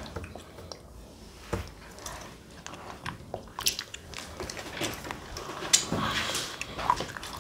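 Children biting into and chewing Magnum chocolate-coated ice cream bars: wet mouth sounds with scattered short, sharp cracks of the chocolate shell.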